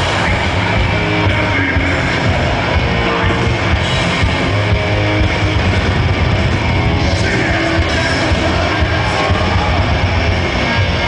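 Heavy metal band playing live at a steady, loud level: distorted electric guitars, bass and drums.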